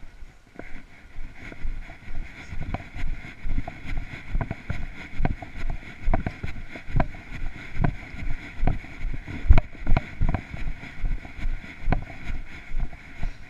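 Footsteps of a person walking briskly on a paved path, heard from a body-worn camera as a regular thump a little under once a second, over a steady hiss.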